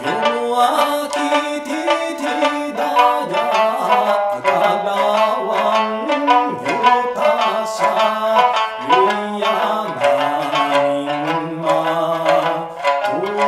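Okinawan sanshin, a three-stringed snakeskin lute tuned A–D–A, plucked with a plectrum in a brisk, lively run of notes. A man sings along in Okinawan, holding long wavering notes over it.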